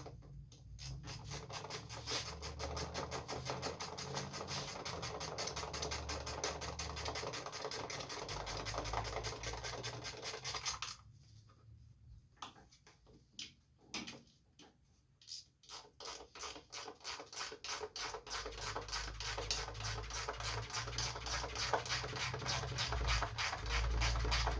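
Hand ratchet wrench clicking in quick, even strokes as the engine shroud bolts are tightened down. It stops for a few seconds about halfway through, then starts again.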